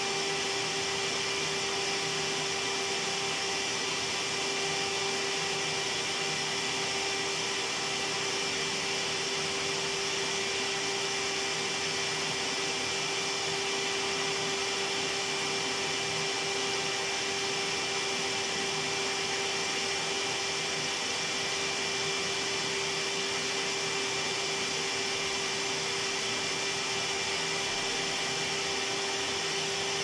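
Electric vacuum cleaner running without a break: a steady rush of air with a constant hum underneath.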